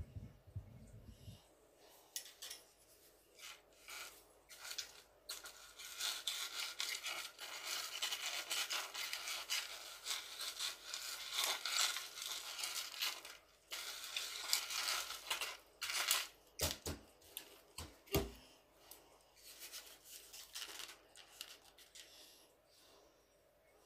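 A vacuum cleaner hose sucking up a pile of grit, plastic beads and glitter from carpet: dense crunching and rattling as the debris goes up the hose, thickest in the middle and thinning out near the end.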